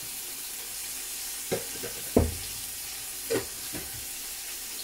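Food sizzling steadily as it fries in a pan, with four short sharp knocks, the loudest about two seconds in.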